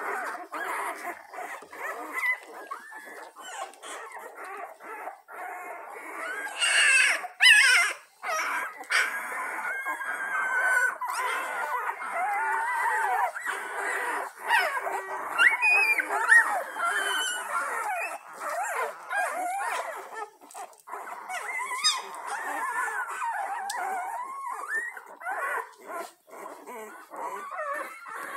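A litter of young puppies whining and squeaking, many thin, wavering squeals overlapping without pause, with a louder outburst about seven seconds in. This is the discontented squeaking of pups that expected to be fed.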